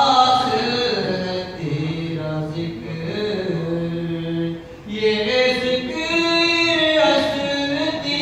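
A man singing a manqabat, an Urdu devotional poem, into a microphone in long held, wavering notes, with a brief breath pause about five seconds in.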